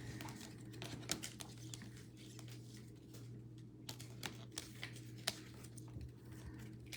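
Scattered light clicks and taps of trading cards and plastic card holders being handled, over a steady low hum.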